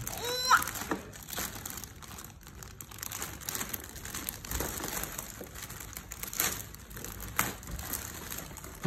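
Clear plastic wrapping crinkling and rustling irregularly as hands handle and pull at it, with a few sharper crackles.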